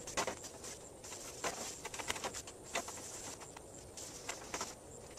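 Cleaning down a sanded bench seat: irregular short hissing strokes from a trigger spray bottle being squirted and a cloth wiping the surface.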